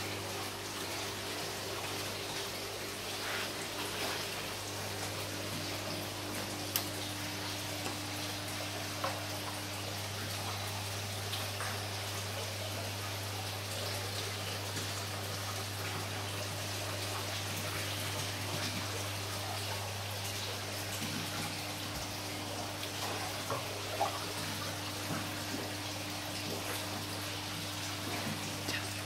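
Saltwater reef aquarium's water circulation running: a steady wash of moving water over a constant low hum, with a few faint ticks.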